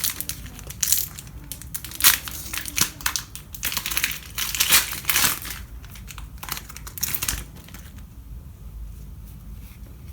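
Foil trading-card booster pack wrapper being crinkled and torn open by hand, a run of sharp crackles that dies down about seven seconds in.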